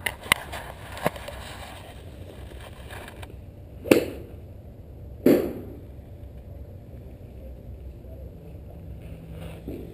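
Golf club striking a ball off a driving-range mat: one sharp crack about four seconds in, followed just over a second later by another strong knock, with a few lighter clicks near the start. A steady low rumble runs underneath.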